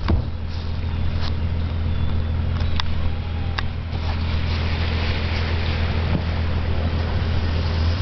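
Engine of an off-road 4x4 running with a steady low drone while an SUV wades through a shallow stream; water splashing and rushing grows louder in the second half, with a few sharp clicks.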